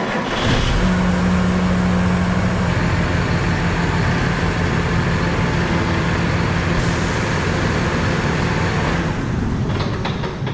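An engine running at a steady speed just after starting, with one steady low tone under a loud even noise.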